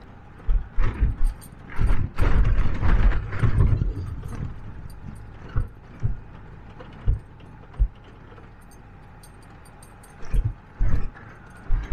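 2015 Ford Ranger 2.2-litre turbo-diesel pickup with a hardtop camper driving over a rough, rocky track: irregular heavy thumps and rattles from the body and load as it jolts over stones, over a low steady engine drone. The jolts come in a cluster over the first few seconds, then singly, and bunch again near the end.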